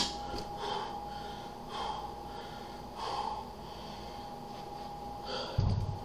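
A man's short, forceful breaths while working through a set of dumbbell triceps extensions, one every second or so. Near the end comes a low thud as a dumbbell is set down.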